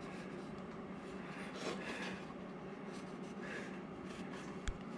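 Pencil lead scratching faintly on a carved wooden figure as a guide line is drawn, in a few soft strokes, with one sharp light click near the end.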